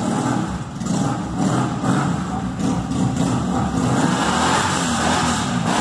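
Custom bobber motorcycle's engine running, its pitch rising and falling a little as it is revved.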